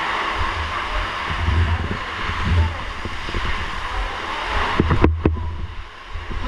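Steady rushing noise with low rumbling buffets on the microphone and faint voices behind it. The noise drops away briefly about five seconds in.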